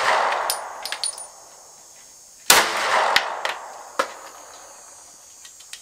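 A 9mm Rost Martin RM1C handgun fired once, about two and a half seconds in, the shot ringing out and dying away over about a second. The tail of an earlier shot fades at the start, and several fainter sharp clicks are scattered around the shot.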